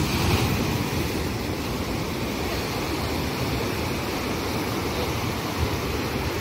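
Sea surf breaking and washing in over a rocky shore: a steady rushing noise, heaviest in the low range.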